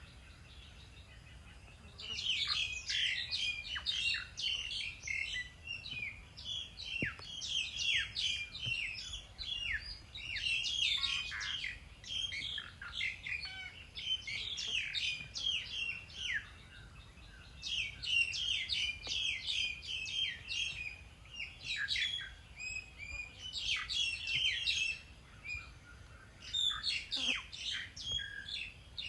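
Small birds chirping and twittering, many short high calls in quick succession, in bouts of a few seconds each with brief lulls between them.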